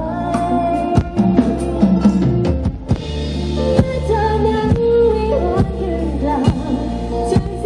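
Live band amplified through a rot hae music truck's sound system: a woman sings a melody into a microphone over keyboard, electric bass and a drum kit keeping a steady beat.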